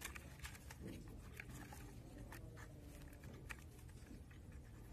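Faint handling noise: a few light clicks and rustles as the stripped wires of a clothes iron's power cord are handled by fingers.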